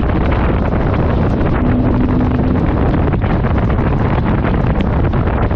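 Exhaust of a 2023 Ford F-150's 3.5-litre twin-turbo EcoBoost V6 through a Manta 3-inch cat-back system, heard at the tailpipes while the truck is moving, with heavy wind buffeting on the microphone. A short steady hum rises out of it about two seconds in.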